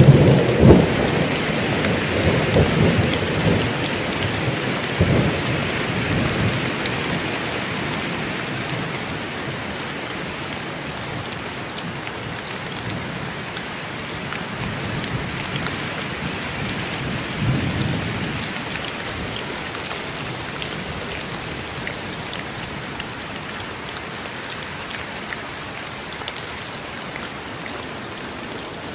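Steady rain falling in a forest. A thunder rumble at the start fades away over the first several seconds, a softer rumble follows about two-thirds of the way through, and scattered drips tick through it.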